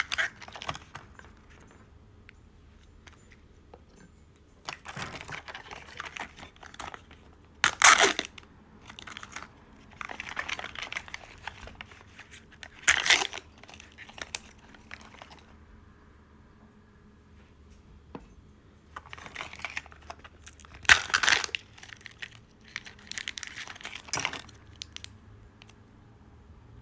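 Small plastic wrappers crinkling and tearing as a Zuru Mini Brands capsule is unpacked by hand, in separate bursts every few seconds with a few short, sharp rips among the rustling.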